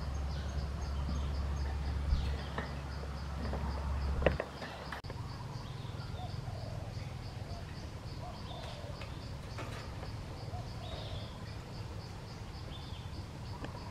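Outdoor forest ambience: an insect chirping in a steady high pulse about three times a second, with faint short bird calls. A low rumble fills the first four seconds and stops after a sharp click.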